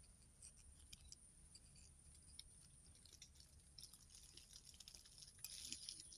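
Faint, scattered small clicks and light scraping from a hook disgorger working a deeply swallowed fish hook out of a small fish's mouth, a little busier near the end, over a steady faint high-pitched tone.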